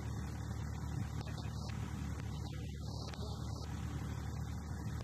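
Steady drone of a light aircraft's engine in cruising flight, heard from inside the cockpit.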